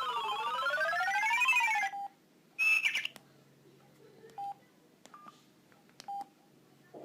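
Samsung SGH-E330 mobile phone ringtone: an electronic tone sweeping up and down in pitch, cut off about two seconds in. It is followed by a louder high beep and a few short, quiet key beeps and clicks from the phone.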